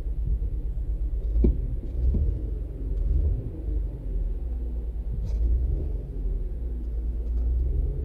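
Toyota Avalon V6 idling with a low rhythmic rumble and a few thumps about one and a half, two and five seconds in. The engine is misfiring and shaking at idle under the air-conditioning load, a misfire the mechanic traces to a faulty fuel injector.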